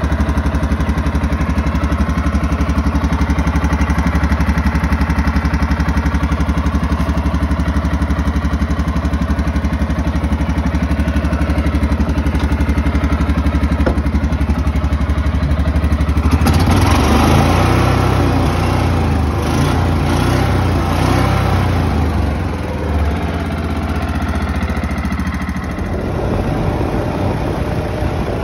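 Kawasaki Mule 550 utility vehicle's engine running at a steady idle after its carburetor work. About 16 seconds in, the sound turns rougher and more uneven as the engine picks up, and the Mule is driven off.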